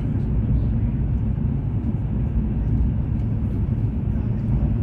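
Steady low rumble inside the passenger cabin of a Fuxing CR400BF-Z high-speed train running at speed.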